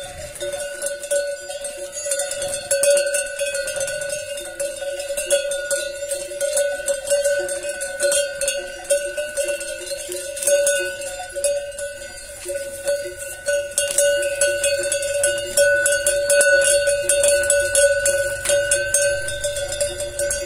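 Metal livestock bell (cencerro) on a horse's neck collar, clanking over and over as the horse tugs and eats cane, its ring holding one steady pitch.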